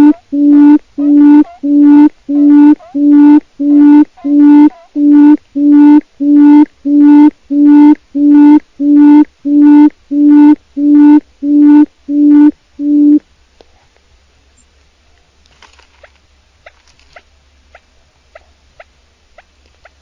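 A quail calling: a steady series of about twenty low, even-pitched notes, a little under two a second, each about half a second long, that stops suddenly about thirteen seconds in. Only faint scattered clicks follow.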